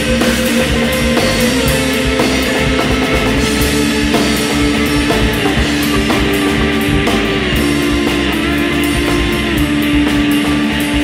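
Rock band soundtrack in an instrumental stretch: electric guitar holding long notes that shift pitch every few seconds over steady drums.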